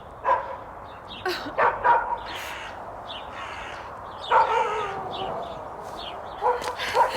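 A dog barking: several short barks, a longer drawn-out one about four seconds in, and two more near the end.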